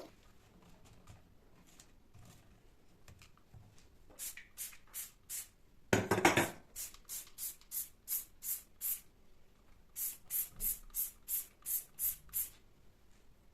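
Trigger spray bottle squirted in quick runs of short sprays, about three a second, in three bursts of squeezes. A single louder scuffing noise comes just before the middle run.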